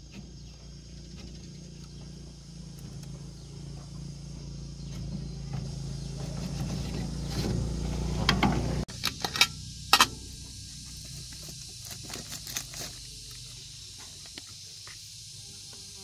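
A low, steady machine hum swells over the first half and cuts off abruptly about nine seconds in. Then come several sharp metallic knocks and clicks from work on a small gasoline engine and its metal frame, while insects drone steadily in the background.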